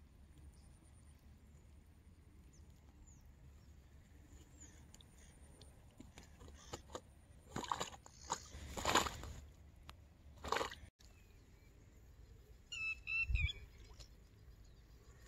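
A few short rustling, swishing noises from an angler handling and casting a float rod among waterside plants, over a faint outdoor background. Near the end a bird chirps briefly.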